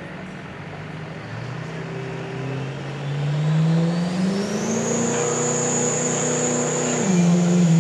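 Work stock diesel pickup truck pulling a sled, with its engine revs climbing and a high turbo whine rising and then holding steady as it gets louder. The engine note steps down a little near the end.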